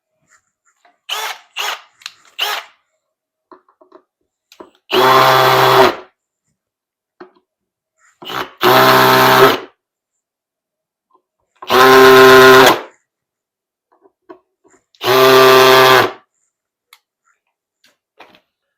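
Cordless drill/driver running in four short bursts of about a second each, roughly three seconds apart, driving the screws that hold the speaker driver in its cabinet. A few light clicks come before the first burst.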